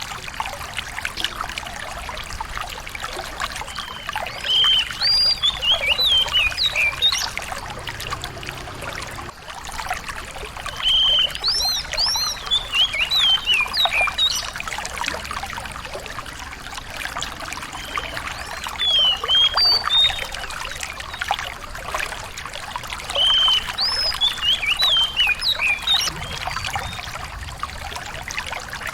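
A small songbird repeating a short song of quick, sharp whistled notes, a new phrase about every six or seven seconds, over the steady trickle of running water.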